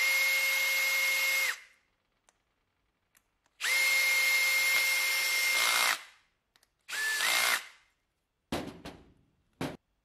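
Cordless drill driving screws into a pneumatic solenoid valve: three runs of its motor whine, the first about a second and a half, the second about two and a half seconds, and a short last one that steps up in pitch. Two short knocks follow near the end.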